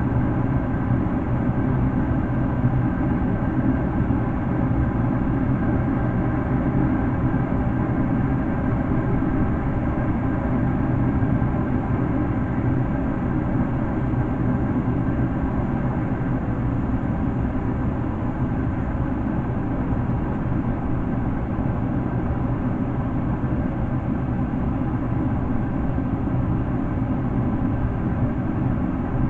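Steady vehicle noise: a continuous, even rumble of engine and road that does not change.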